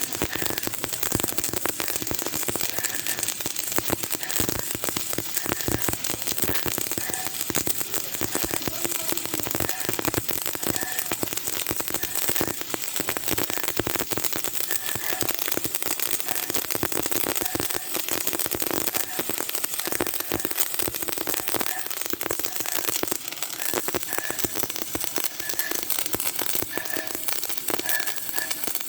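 Electric welding arc crackling steadily: a dense, unbroken run of tiny pops with no motor whine.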